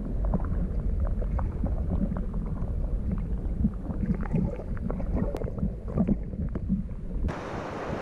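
Water sloshing and slapping around a canoe in a river, with a steady low rumble and many small splashes and knocks. A little after seven seconds in, this cuts to an even rushing sound of moving water or wind.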